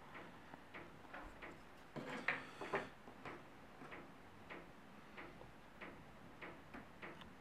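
Faint, regular ticking at roughly two and a half ticks a second. About two seconds in comes a short cluster of louder clicks and knocks, as the small power-supply board is handled and set down on the wooden bench.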